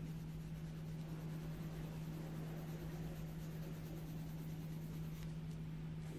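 Coloured pencil shading on paper, a soft continuous scratching, over a steady low hum.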